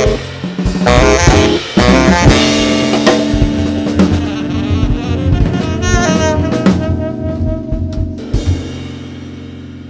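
Jazz quartet of saxophone, electric guitar, double bass and drums playing the closing bars: a few short ensemble hits, then a long held final chord with the saxophone on top, fading out near the end.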